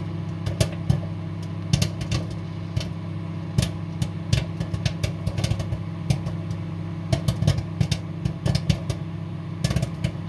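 Microwave popcorn kernels popping inside the bag in a running microwave oven. The pops come as irregular sharp cracks, several a second, over the oven's steady hum.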